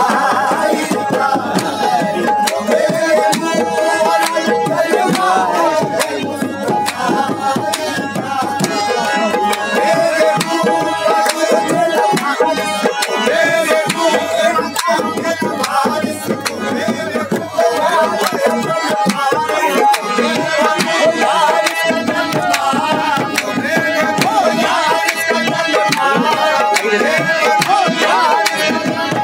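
Qawwali music: tabla drumming over the sustained reedy chords of harmoniums.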